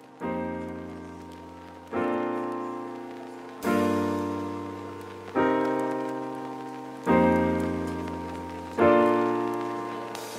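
Background music: piano chords struck about every second and a half to two seconds, each ringing out and fading before the next.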